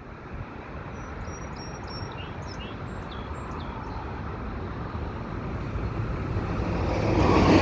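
An approaching train, its low rumble growing steadily louder and rising sharply near the end. A few short bird chirps sound about one to three seconds in.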